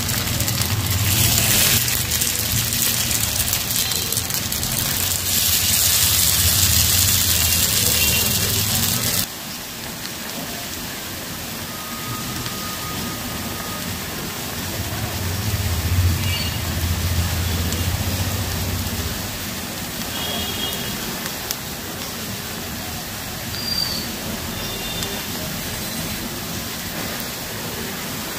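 Banana flower pakora patties sizzling as they shallow-fry in hot oil in a pan: a steady frying hiss with a low hum underneath at times. The hiss drops to a quieter level about a third of the way through.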